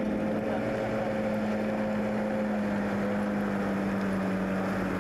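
Truck engine running with a steady hum that sinks slowly in pitch, over a continuous rushing noise.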